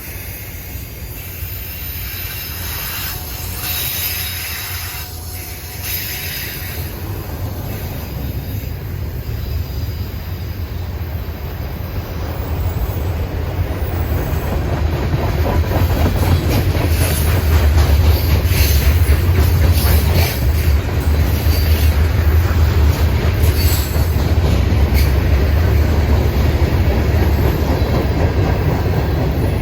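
CSX manifest freight train Q576 rolling past: a steady rumble of freight cars on the rails, with brief high wheel squeals in the first few seconds. The rumble grows louder about halfway through and stays loud.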